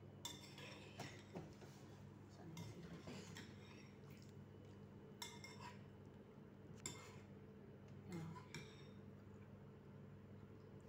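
A metal spoon clinking and scraping against ceramic bowls and plates while eating. There are about ten light, scattered clicks over a faint, steady low hum.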